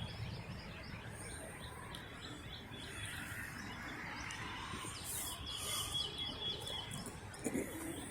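Faint outdoor background noise with small birds chirping in short, high calls now and then.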